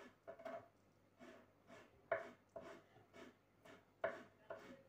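Kitchen knife slicing cooked tripe thinly on a wooden cutting board: a run of faint, irregular cutting knocks, the strongest about two seconds in and again near the end.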